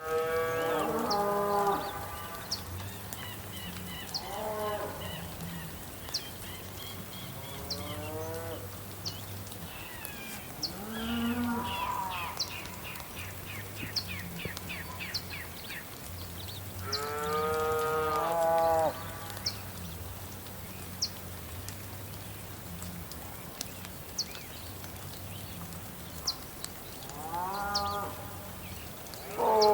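Cattle mooing, about six long moos a few seconds apart, over birds twittering and a steady soft hiss of rain with scattered sharp ticks.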